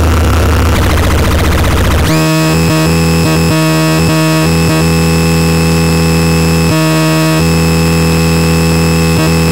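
VAPETRON MEGALOMAN model 23 electronic noise device making a harsh, distorted drone. About two seconds in, a loud buzzing tone with many overtones cuts in, stuttering on and off in places, with a falling sweep near the end.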